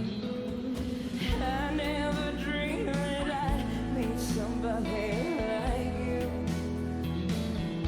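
Background pop song: a vocal line with vibrato sung over a steady instrumental accompaniment and bass.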